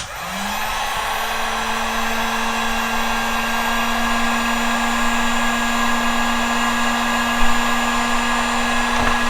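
Electric heat gun running steadily to shrink heat-shrink tubing over a soldered battery wire. It gives an even airy rush with a motor hum that rises in pitch as it spins up in the first half second, then holds steady.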